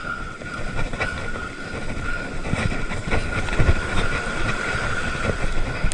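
Wind buffeting the microphone over surf washing up the beach, with a thin, steady high tone throughout.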